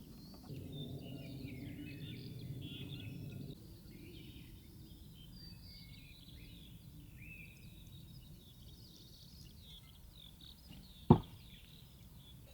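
Small birds chirping and twittering, many short quick calls. A low steady noise sits under them for the first few seconds, and a single sharp knock comes about eleven seconds in.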